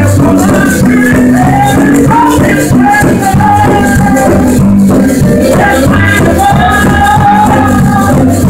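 Music playing loudly and continuously.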